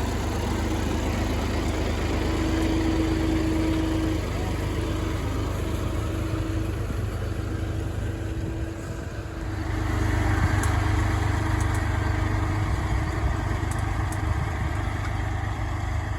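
Tractor engine running steadily, growing louder about ten seconds in.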